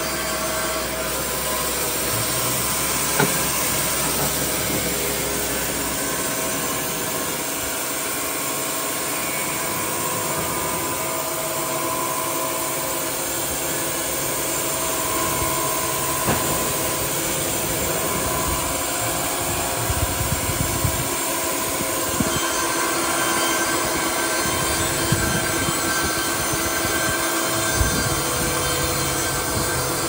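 Baker Model 3650E band sawmill running, its band blade sawing lengthwise through a green log as the head travels along it. A steady mechanical noise with held tones, broken by a few sharp clicks.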